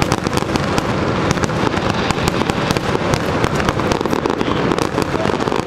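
Fireworks finale: a dense, continuous barrage of shell bursts and crackling, with sharp cracks coming many times a second over a constant loud rumble.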